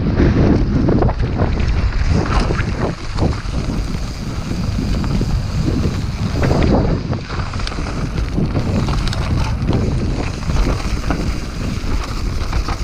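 Mountain bike descending a rocky dirt trail: steady wind rushing over the action-camera microphone, with the tyres rumbling over dirt and the bike knocking and rattling over rocks.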